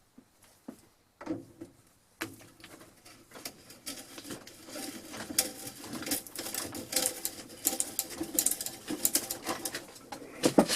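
Vintage hand-crank drill being cranked with an auger bit cutting into wood: fast, irregular clicking of the gears and rasping of the bit. It starts about two seconds in and grows louder as the bit bites.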